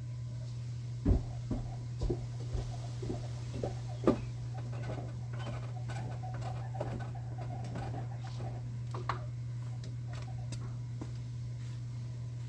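Scattered light knocks and taps, the sharpest about one and four seconds in and another about nine seconds in, over a steady low hum.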